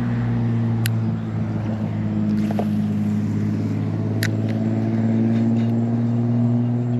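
A car engine running steadily nearby, a low even hum, with two brief sharp clicks.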